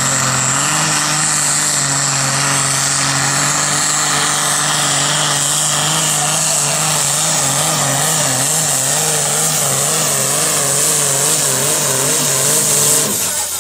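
Diesel farm tractor engine running flat out as it pulls a weight sled, its note wavering up and down about twice a second. Near the end the engine note drops away abruptly as the throttle is cut.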